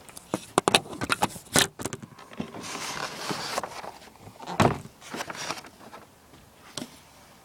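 Handling of a cardboard box and its packaged contents: a quick run of clicks and knocks, a rustle from about two to three and a half seconds in, and a heavier knock near the five-second mark.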